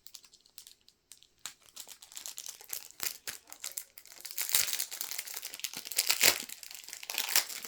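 Foil wrapper of a Pokémon card booster pack crinkling and tearing as fingers work at it to get it open: an irregular crackle, sparse at first, louder and denser from about halfway through.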